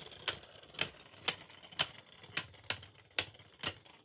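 Two spinning Beyblade Burst tops, Gambit Dragon and Lightning Pandora, knocking together in a plastic stadium: a run of sharp plastic clacks about two a second. The hits are weak, from a Gambit Dragon with no power left.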